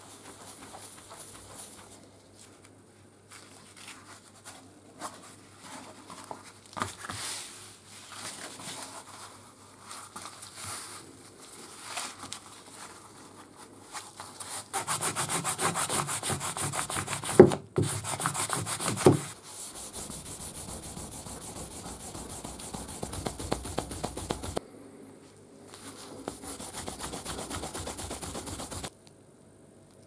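A cloth rubbed by hand on aluminium during mirror polishing. The strokes are quiet and uneven at first. About halfway through they turn into a loud, fast scrubbing as polish paste is worked into the cloth. This is followed by steadier rubbing that stops briefly and resumes, and ends shortly before the close.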